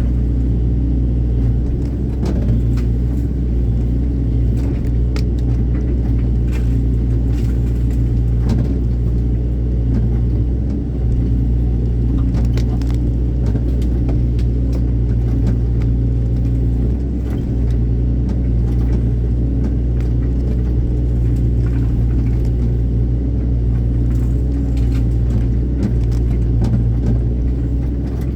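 Excavator's diesel engine running steadily with a deep hum, with scattered clicks and knocks over it.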